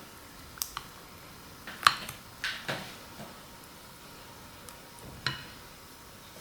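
Scattered light clicks and knocks of kitchen utensils and dishes being handled, about six in all, the sharpest about two seconds in.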